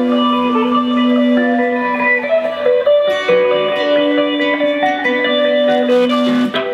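Live band playing an instrumental passage on a Telecaster-style electric guitar and an acoustic guitar: a melody of changing notes over long held low notes.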